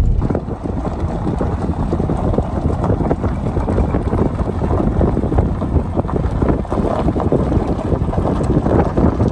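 Wind buffeting the microphone: a loud, steady, irregular rushing with its weight in the low end.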